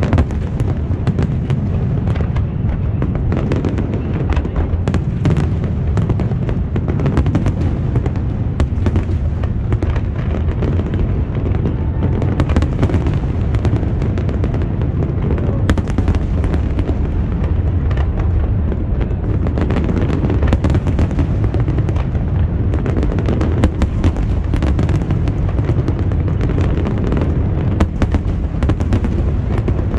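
Large aerial fireworks display: a dense, unbroken barrage of shell bursts, many sharp bangs over a steady deep rumble.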